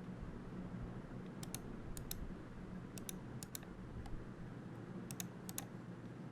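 Keystrokes on a Keychron K2 V2 mechanical keyboard with lubed Gateron Milky Yellow Pro linear switches: about ten sharp key clicks, mostly in quick pairs of press and release, starting about a second and a half in, over a steady low hum.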